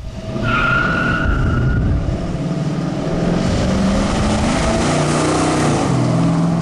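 Ford 351 Cleveland V8 with mechanical cam and a 750 double-pumper carburettor, running, the pitch of its note shifting up and down. A brief high squeal is heard about half a second in.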